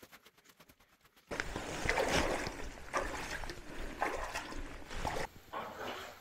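Barefoot footsteps wading through shallow muddy water, splashing about once a second over running water noise, starting abruptly about a second in.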